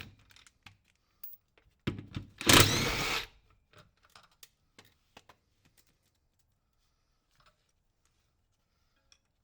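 Scattered clicks and knocks of tools and metal parts being worked under a car, with one louder, harsher burst lasting about a second, two to three seconds in; the last few seconds are nearly silent.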